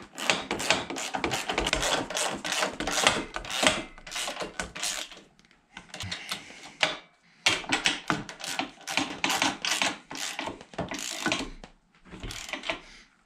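A 3/8-inch ratchet with a 19 mm socket clicking rapidly as it tightens nuts onto mounting studs. The clicks come in long runs, with a pause about five seconds in and another near the end.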